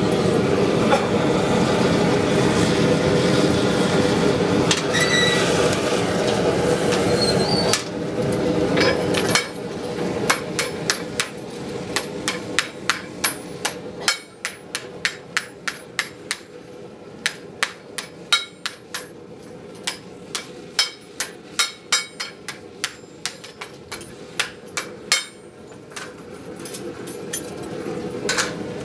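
A propane gas forge's burners run with a steady rushing noise for about the first eight seconds. Then a hammer strikes a forged steel frying-pan blank held in tongs, in a steady run of blows about two a second, and near the end the forge noise rises again.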